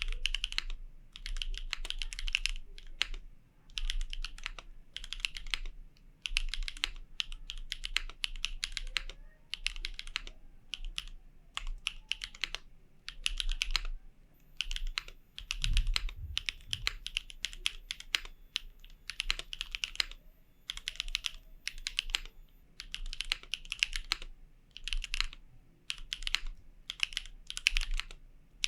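Typing on an Origami V2 custom mechanical keyboard with Gateron Raw switches, an aluminium plate, GMK Maestro ABS keycaps and no foam inside. Keystrokes come in quick runs of a second or two with short pauses between them, with a few deeper thumps about halfway through.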